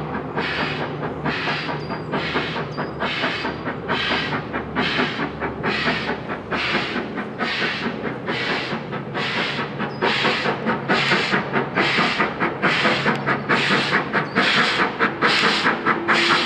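Stanier 'Black Five' two-cylinder 4-6-0 steam locomotive 44932 approaching under steam. Its exhaust chuffs come evenly at about two a second and grow louder about ten seconds in as it nears.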